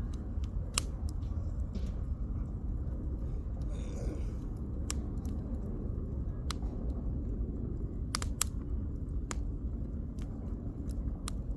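Firewood burning in a campfire, crackling: scattered sharp pops, with a quick cluster of them about eight seconds in, over a steady low rumble.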